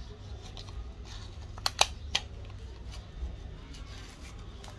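Sharp clicks and taps from hands handling a smartphone's glass back: a few faint ones early, then three loud ones close together about two seconds in, over a steady low hum.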